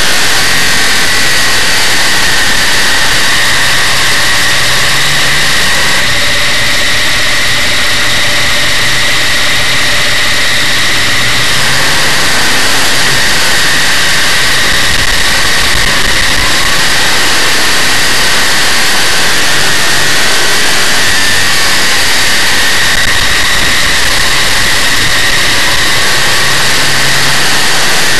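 Big-block Chevrolet V8 of a dirt modified race car running hard at racing speed, very loud and constant, picked up by an onboard camera in the car.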